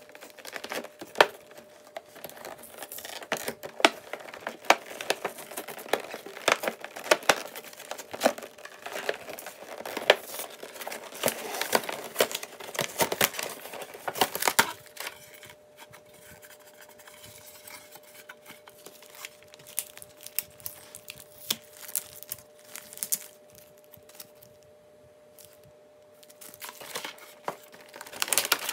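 Clear plastic blister packaging and a cardboard box crinkling and crackling as hands open a boxed action figure, with many sharp clicks. Busy in the first half, then only occasional clicks, picking up again near the end.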